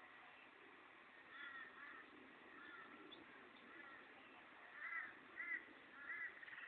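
Torresian crows cawing, a run of short, faint calls with the three loudest coming close together about five to six seconds in, heard over a steady background hiss.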